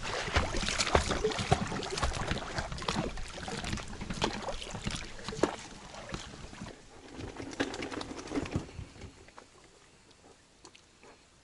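Water splashing and sloshing around an inflatable PVC boat as it is brought in to the bank, with many short knocks and handling noises on the boat; it dies away about nine seconds in.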